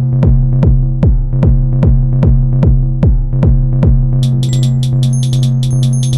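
Psy-techno pattern playing on an Elektron Model:Cycles groovebox: a four-on-the-floor kick drum with a falling pitch, about two and a half beats a second, over a steady droning bass tone. Short ticking hi-hats come in about four seconds in.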